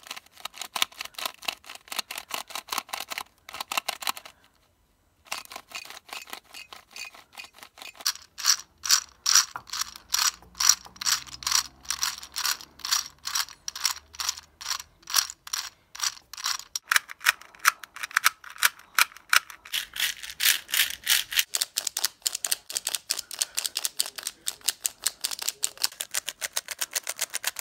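A puzzle cube being turned by hand: a run of sharp plastic clicks, several a second, one for each turn. The turning stops briefly about four seconds in, then grows quicker past the middle.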